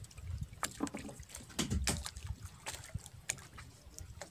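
Water sloshing and slapping against a small fishing boat's hull, with irregular sharp splashes or knocks over a steady low rumble.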